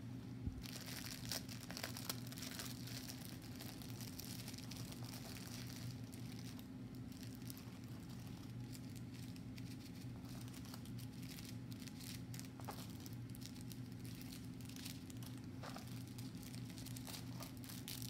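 Clear plastic packaging crinkling as small bags of diamond painting drills are handled and pulled from a plastic sleeve, with irregular crackles throughout. A faint steady low hum runs underneath.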